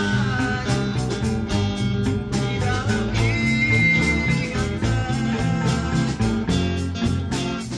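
A band jamming a rock song: guitar over bass and drums, with one high lead note held for about a second in the middle.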